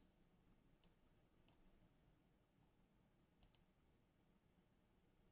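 Near silence with a few faint computer mouse clicks: single clicks about a second and a second and a half in, then a quick double click about three and a half seconds in.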